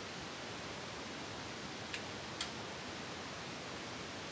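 Steady hiss with two light, sharp clicks about half a second apart near the middle: a tire iron touching a steel wheel rim as a tire is pried onto it by hand.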